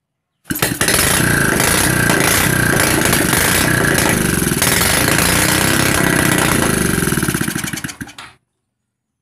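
Honda RS125 motorcycle engine running loud with fast even firing pulses, coming in suddenly about half a second in and dying away near the end.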